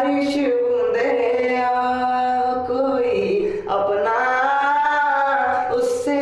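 A man singing, drawing out two long notes without clear words. The first is held fairly steady, and after a short break about halfway through the second swells up and falls away.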